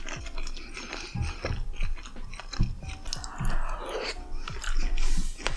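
A person chewing a mouthful of sushi roll, with many small mouth clicks and soft smacks. Soft background music plays underneath.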